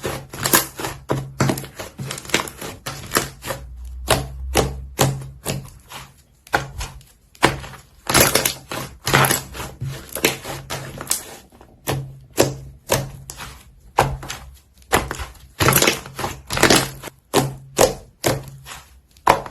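Clay slime being kneaded and mixed by hand: a fast, irregular run of sharp clicks and crackles.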